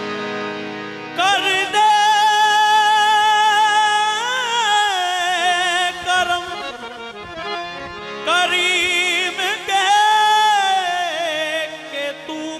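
Qawwali singing: male voices in long, ornamented, wavering phrases over sustained harmonium chords. One long phrase starts about a second in, and a second swells up past the middle and tapers off near the end.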